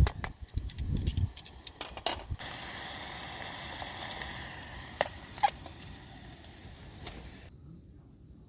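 Food sizzling in a pan over a camp stove, with a few knocks and clicks of a utensil against the pan; the sizzling stops suddenly near the end.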